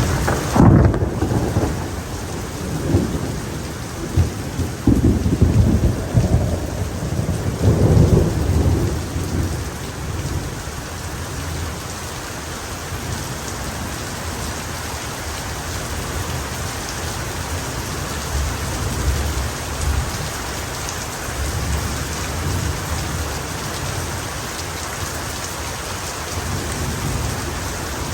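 Heavy rain falling steadily in a thunderstorm. Thunder rumbles and rolls several times in the first ten seconds or so, then only a lighter low rumble stays under the rain.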